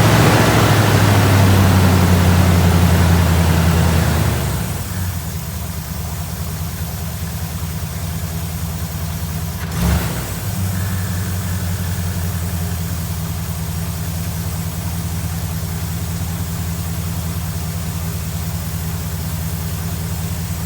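1982 Pontiac Trans Am's 5.0 V8 running: held at raised revs for about four seconds, then settling to a steady idle, with a single knock about ten seconds in. It runs on fresh oil without clicking or clattering, sounding better.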